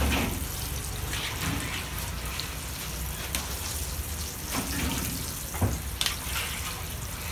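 Samosas deep-frying in a wide kadai of hot oil, a steady sizzle with a few sharp clicks scattered through it.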